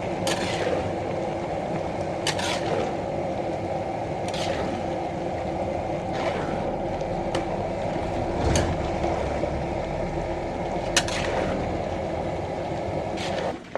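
A large pot of menudo being stirred over a steady roaring burner. A ladle scrapes the pot about every two seconds.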